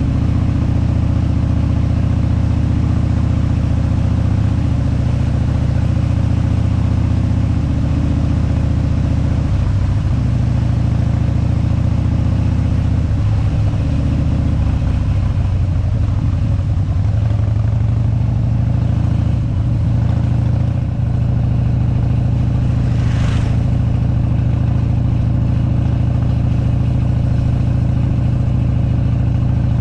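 Harley-Davidson big-twin V-twin motorcycle engine running steadily as the bike rides along a gravel road, a loud low rumble whose note shifts briefly about ten seconds in and again around the middle.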